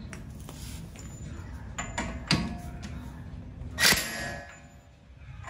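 Light metallic clicks and clinks of tools at a car's front wheel hub. About four seconds in comes one short, loud burst from a cordless impact tool driving the axle nut, with a brief metallic ring after it.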